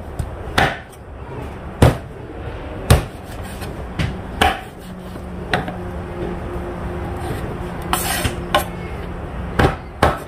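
Raw native chicken being chopped apart with a blade: about nine sharp chops at uneven intervals, roughly a second apart. A faint steady hum runs under the middle stretch.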